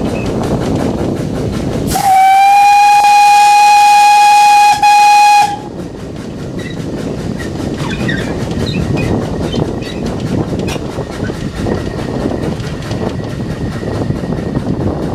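Whistle of the Welshpool & Llanfair steam locomotive The Earl, a Beyer Peacock 0-6-0 tank engine, sounded once for about three and a half seconds with a brief dip near its end, heard from the cab as a warning on the approach to a level crossing. Before and after it, the locomotive running along with heavy wind noise on the microphone.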